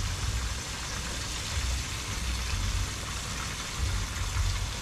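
Fish fillets frying in a pan on a portable gas stove: a steady sizzle over a fluctuating low rumble.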